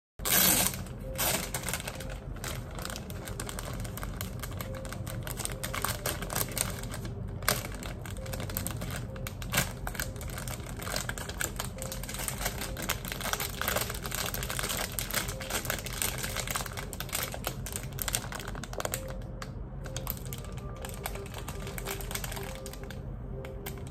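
Close-miked desk sounds: a pen writing on paper amid many small irregular clicks and taps, then the plastic wrapper of a bun crinkling as it is handled and opened.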